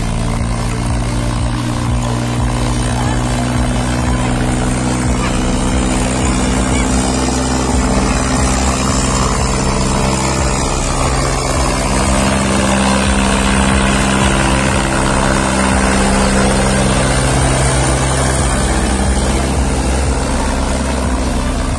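Tractor's diesel engine running hard and steadily under heavy load, hauling a train of soil-filled trailers. Its drone holds a steady pitch with slight rises and falls.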